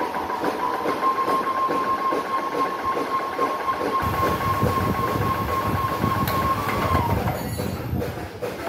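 Ultrabest Bheem airless paint sprayer running as it builds pressure: a steady high motor whine over the fast, even clatter of the pump. A heavier low rumble joins about halfway, and near the end the whine glides down and stops while the clatter carries on.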